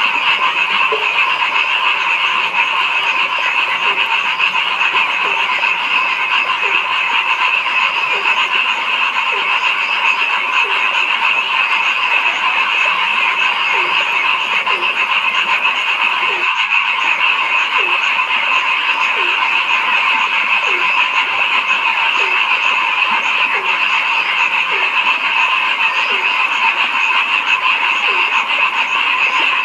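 A dense chorus of frogs calling steadily, with one lower-pitched croak repeating about once a second; the sound cuts out for a split second about halfway through.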